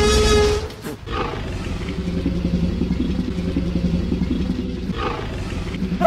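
Dinosaur roar sound effect that cuts off under a second in, followed by a low, steady rumbling growl.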